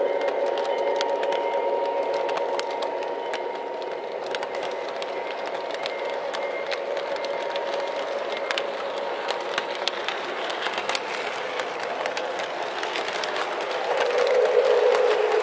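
Lionel O-gauge toy train running on FasTrack, heard from a camera riding on the train: a steady running noise with irregular clicking from the wheels and track. It grows louder near the end.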